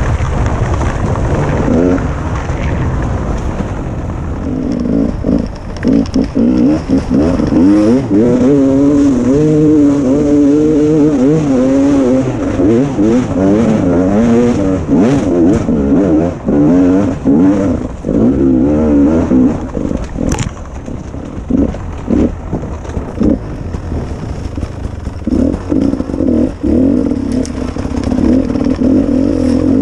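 Beta two-stroke enduro motorcycle ridden hard along a forest trail, the engine revving up and falling back again and again as the throttle is opened and shut. A few sharp knocks from the bike over rough ground, the clearest about twenty seconds in.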